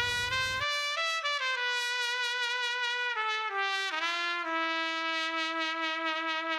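Background music: a lone trumpet-like horn plays a slow descending line of notes, then settles on a long held note with vibrato.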